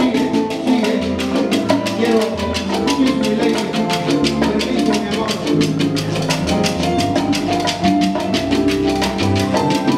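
Live Cuban salsa band playing: congas and bongos keep a fast, even rhythm over bass and keyboard lines.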